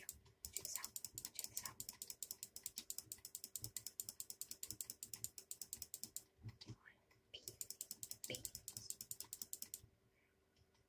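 Rapid, evenly spaced light clicking, about ten clicks a second, in two runs with a short pause between them, stopping shortly before the end.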